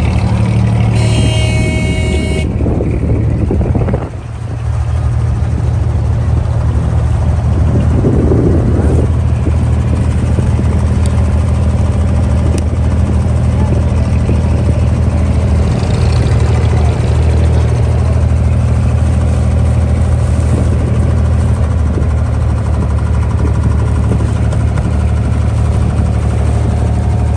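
Diesel engine of a wooden abra water taxi running steadily under way, a low even drone. A brief high pitched tone sounds about a second in.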